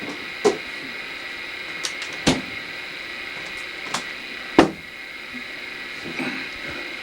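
Three sharp knocks, about two seconds apart, over a steady high-pitched hum.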